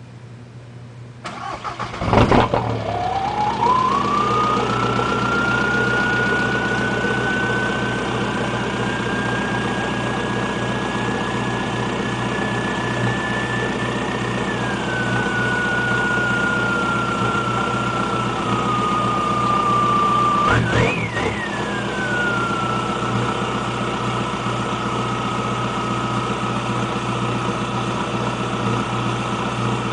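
Straight-piped VW Jetta TDI's 1.9-litre four-cylinder turbodiesel cranking briefly and catching about two seconds in, a cold start without glow plugs, then idling steadily. A high whine rides over the idle, drifting slowly up and then down, and a quick rev blip comes about twenty seconds in.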